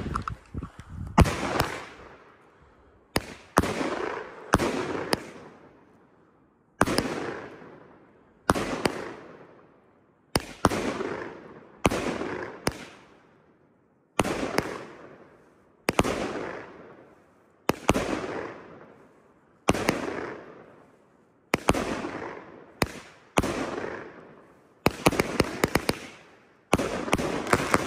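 Aerial fireworks going off in quick succession: a sharp bang every one to two seconds, each trailing off over about a second. About three seconds before the end comes a dense run of rapid crackling.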